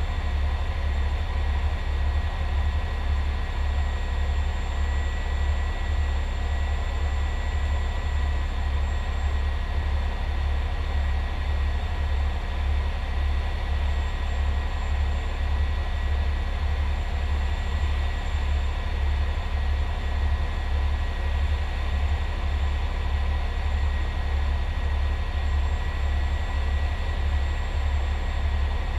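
Fire truck's diesel engine idling, heard from inside the cab: a steady low throb that pulses evenly, with faint steady high tones above it.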